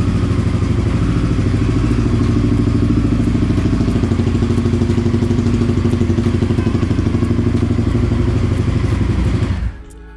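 Honda VTR1000F Superhawk's 996 cc 90-degree V-twin idling steadily through an aftermarket stainless exhaust, with an even pulsing beat. It is shut off and stops suddenly near the end.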